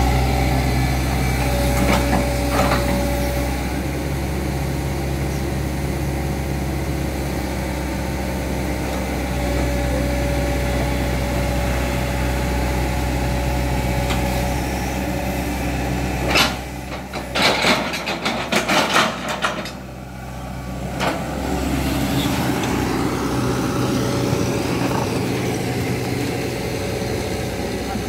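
Engines running steadily as a mud-bogged Toyota Hilux Vigo pickup is towed through deep mud by an excavator, a constant low drone. A little past the middle it is broken by several seconds of sharp knocks and rattles before the drone returns.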